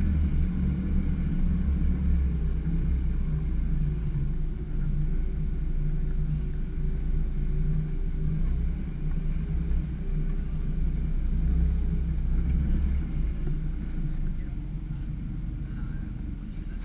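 Suzuki Samurai 4x4 driving off-road, its engine running steadily under load with tyre and trail noise, easing off slightly near the end.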